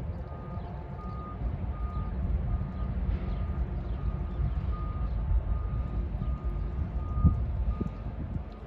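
Electronic grade-crossing warning bell beeping evenly, about three beeps every two seconds, over the steady low rumble of a train.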